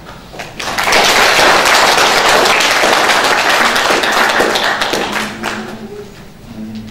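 Audience applauding in a hall. The clapping swells up about a second in and dies away after about five seconds.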